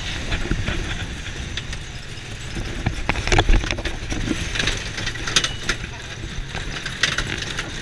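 Side-by-side utility vehicle driving fast over a bumpy grass and dirt track: a steady low engine rumble and wind noise, with frequent clunks and rattles from the body and roll cage over the bumps.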